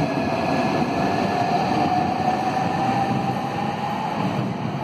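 Southeastern Class 395 Javelin electric train moving along the platform: a steady rumble of wheels on rail with an electric traction whine that rises slowly in pitch as it gathers speed, easing off a little near the end.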